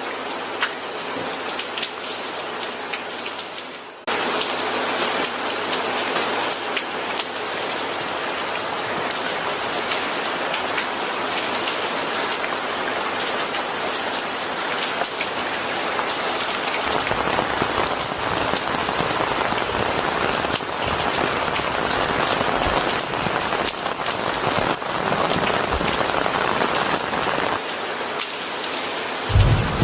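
Steady rain falling and pattering on surfaces. About four seconds in it cuts abruptly to louder, heavier rain. A low rumble of thunder starts right at the end.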